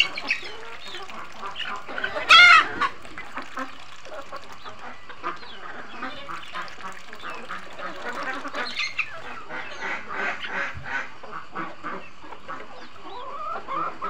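Mixed flock of domestic chickens and ducks feeding together, with a run of short clucks and quacks and one loud call about two and a half seconds in.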